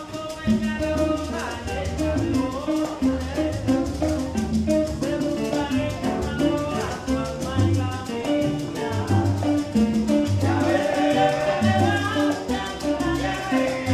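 A small Cuban band playing live salsa-style music: conga drums keep a steady pattern under a strummed acoustic guitar, with maracas shaking and singing.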